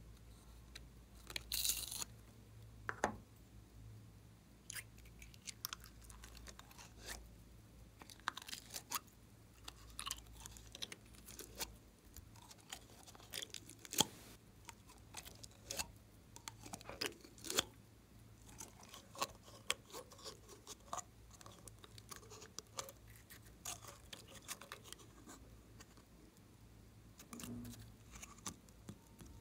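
Clear blue jelly slime squeezed out of a soft plastic cup into a glass bowl: irregular squishing, crackling and clicking as the slime and its container are handled.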